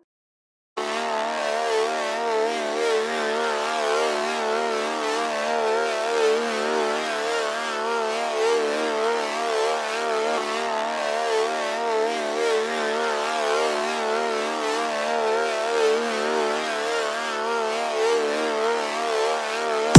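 Phonk music breakdown: a sustained, warbling synth chord with no drums or bass, starting sharply after a brief silence and holding steady until the drop.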